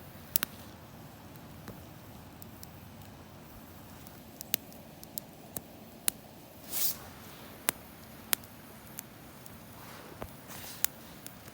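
Small campfire kindled with fat wood crackling: sharp, irregular pops a second or so apart over a low steady hiss, with two brief rushes of hiss.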